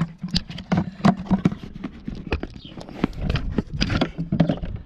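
Irregular clicks, clinks and knocks of metal engine parts and tools being handled as an EGR valve is worked on, over a steady low hum.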